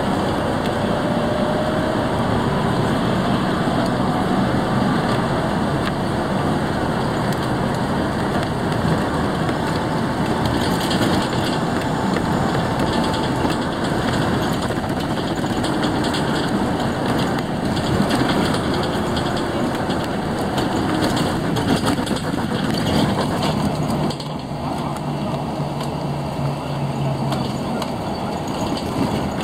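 Steady, dense road traffic noise of engines and tyres passing close by, with a change about three-quarters of the way through to a somewhat quieter, steady low hum.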